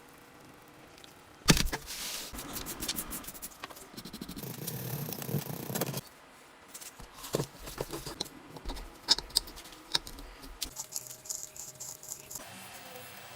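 Hand work on an old gun's metal parts: a sharp click about a second and a half in, then a few seconds of dense scraping, then scattered clicks and scrapes.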